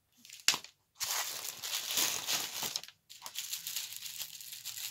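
Small clear plastic bags of square diamond-painting drills crinkling as they are handled and sorted, with a sharp tap about half a second in; the bags crackle loudest for a couple of seconds, then more softly.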